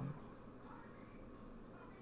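Faint steady room tone with microphone hiss. The tail of a spoken word ends right at the start.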